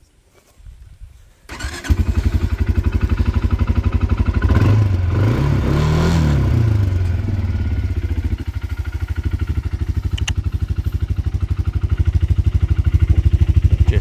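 Kymco MXU300R quad bike's single-cylinder engine starting: a short crank, then it catches about a second and a half in and runs with a steady, even beat. Around five seconds in the revs rise and fall once, then it settles back to idle.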